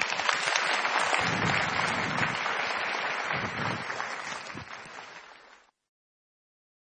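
Audience applauding, fading away and stopping a little over five seconds in.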